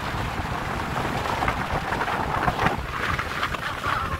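Wind buffeting the microphone: a steady rumbling rush with no clear tone.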